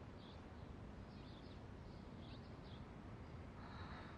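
Near silence: quiet room tone with a few faint, short bird chirps scattered through it.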